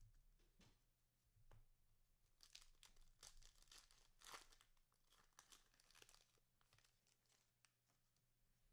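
Faint tearing and crinkling of a trading-card pack wrapper being opened, with a dense run of crackling in the middle and a few light clicks of handling either side.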